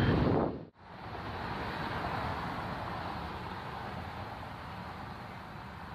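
A loud noise cuts off abruptly about half a second in. It is followed by a quieter, steady rush of jet airliner engines as an airliner rolls along a wet runway.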